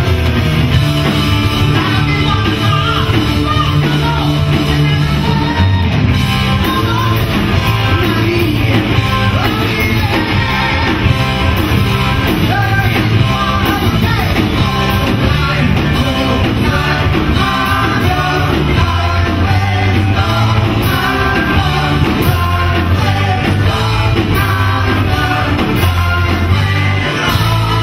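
Rock band playing live on stage, with electric guitars, bass guitar and drums, and a male lead singer.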